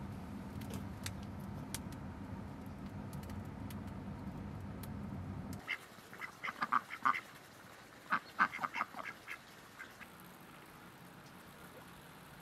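A fire burning in a floor pit oven, a steady low rush with sharp crackles. It stops abruptly about halfway through and domestic ducks quack in a quick run of calls for about four seconds.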